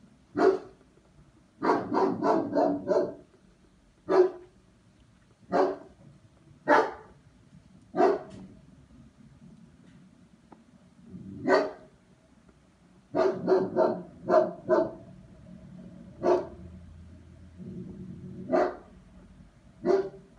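German shepherd barking in short sharp barks. There are two runs of about five quick barks in a row, and single barks a second or two apart in between.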